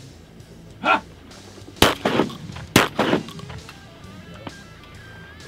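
Two shotgun shots about a second apart, each with a short echo, preceded about a second in by a single short honk.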